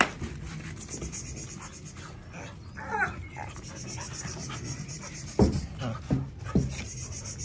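Kangal shepherd puppies playing: a short wavering whine or yelp about three seconds in, then three short, sharp noises a little later, the loudest in the stretch.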